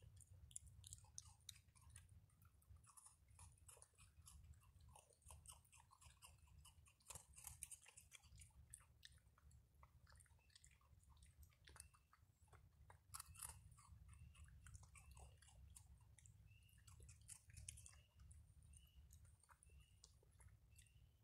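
Raccoons chewing and crunching dry food: a faint, dense run of small crunches and clicks. In the last few seconds a faint short chirp repeats about once a second.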